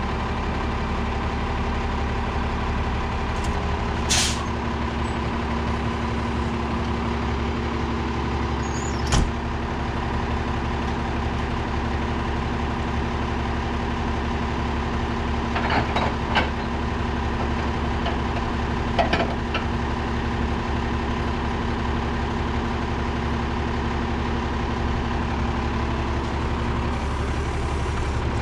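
Peterbilt roll-off truck's Cummins diesel engine idling steadily. A short hiss of air sounds about four seconds in, and there are a few brief knocks later on.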